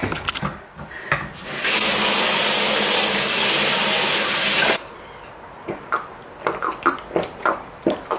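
A kitchen tap runs in a steady stream for about three seconds, starting about a second and a half in, then is shut off abruptly. Small scattered knocks and clicks follow.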